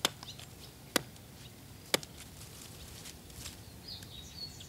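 Three sharp chopping strokes about a second apart from a hand blade cutting into the peeled Kitayama cedar trunk at the stump. The cut severs the last sliver that joins the standing tree to its roots, so it can no longer draw up moisture.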